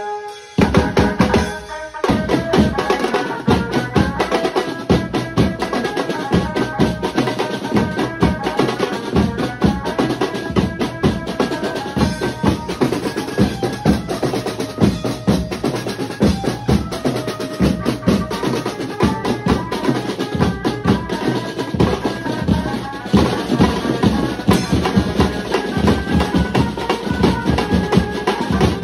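Maharashtrian banjo-party band playing live: a fast, dense beat on drum kits and strap-on drums under an amplified banjo melody. The drums come in hard about half a second in.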